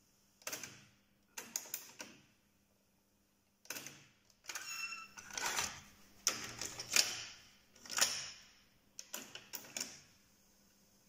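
Pioneer CT-W630R cassette deck's transport keys and tape mechanism: a series of sharp clicks and clunks as the deck II stop/eject key is worked and its cassette door springs open, with a brief mechanical whir a little before the middle.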